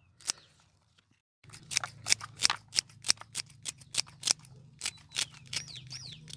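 Scissors snipping through fresh celery stalks, cutting them into small pieces: a quick run of crisp cuts, about four a second, starting about a second and a half in.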